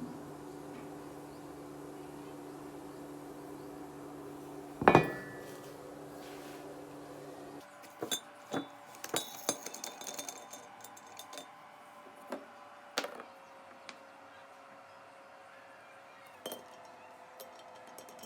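Metal clinking and tapping, as of steel tools handled against steel pipe work: one loud knock with a short ring about five seconds in, then a scatter of separate light clinks. A steady electrical hum underneath stops about seven and a half seconds in.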